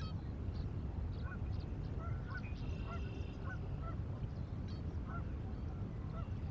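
Distant waterfowl honking, a string of short goose-like calls every half second or so, with a few higher-pitched bird chirps mixed in, over a steady low outdoor rumble.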